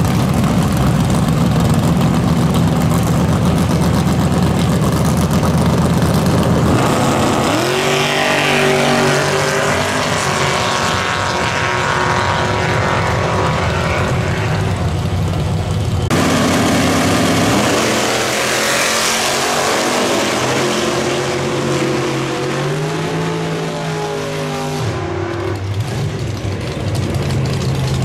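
Drag racing cars' engines at the starting line, then launching about seven seconds in and accelerating hard down the strip, the engine pitch climbing and stepping up through the gears. After a sudden change about two-thirds of the way through, another pair of drag cars launches and pulls away with the same rising pitch.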